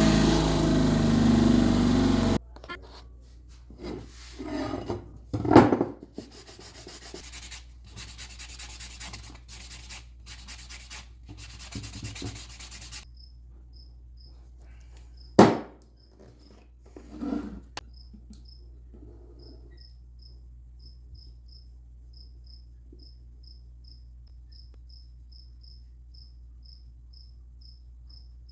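A bench grinder runs for about the first two seconds, then cuts off suddenly. Scattered rubbing and handling noises follow, with two sharp knocks. From about halfway on, crickets chirp steadily in the background.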